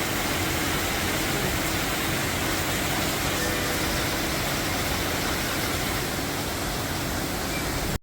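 A large waterfall's water rushing steadily, an even noise without breaks.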